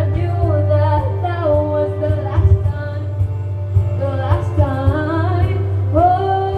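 A woman singing a pop ballad over musical accompaniment with a steady low bass, the melody moving up and down and then settling into a long held note near the end.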